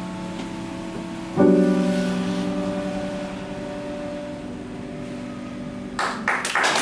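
Jazz quartet's final chord, piano prominent, struck once about a second and a half in and left to ring and fade away slowly. Applause breaks out near the end.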